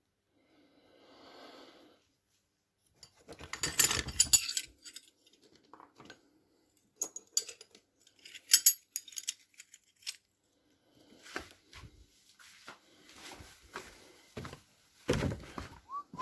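Metal tools and small parts clinking and rattling in several bursts of sharp clicks and clatters, with a few knocks near the end.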